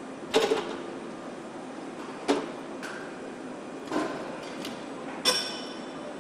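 Car assembly-line machinery: four sharp clacks and clunks, a second and a half to two seconds apart, the last one ringing briefly, over a steady factory hum.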